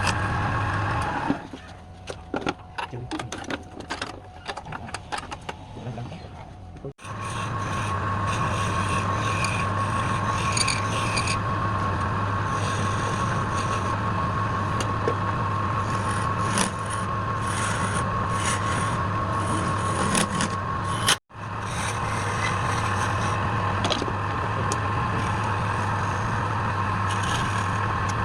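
Wood lathe motor running with a steady hum while a turning tool scrapes the spinning wood. The scraping is quieter and broken into short strokes in the first few seconds. The sound drops out abruptly twice.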